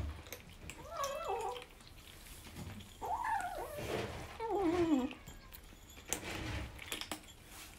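Kitten meowing repeatedly while eating: a few short calls, the later ones falling in pitch.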